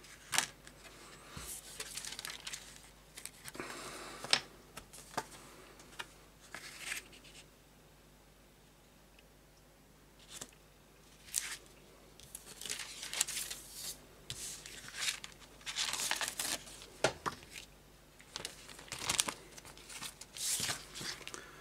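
Plastic kit bags crinkling and rustling as they are handled, in irregular bursts with a short pause near the middle and denser crinkling through the second half.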